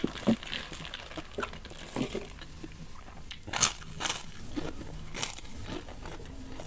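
Close-miked chewing with mouth sounds, then loud crunches as a crisp kerupuk cracker is bitten and chewed: three sharp crunches in the second half, the first the loudest.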